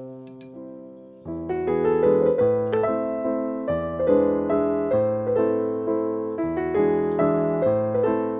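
Background piano music. A held note fades for about a second, then a gentle melody with chords picks up and runs on.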